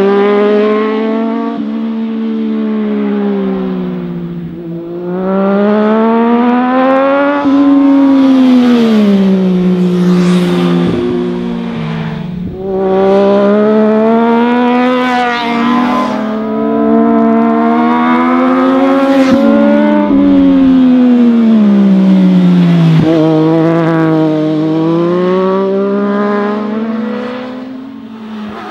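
Sport-bike engines revving through a series of tight corners. The pitch climbs as the bikes accelerate and falls away as they ease off, over several passes, with the sound dipping briefly between them.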